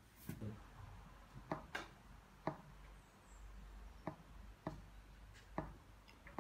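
Quiet room tone with several light clicks and taps at irregular intervals.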